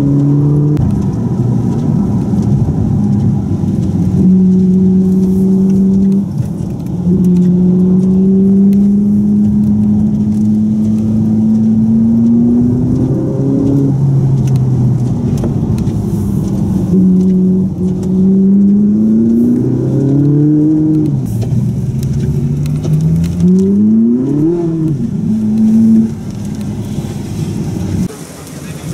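Car engine running, its pitch holding steady for long stretches, then rising and falling several times, with a quick rise and fall in revs about 24 seconds in.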